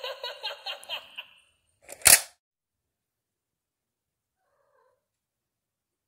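Electronic Halloween monster toy playing its sound effect, a warbling, chattering voice that stops about a second and a half in. A single loud sharp click follows a little after two seconds, then near silence.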